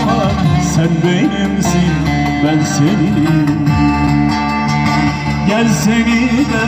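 Live Turkish folk music on an amplified bağlama (saz), plucked over a steady drone, with a man singing along.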